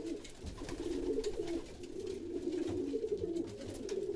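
Several racing pigeons cooing, an unbroken low rolling coo, with a few faint clicks.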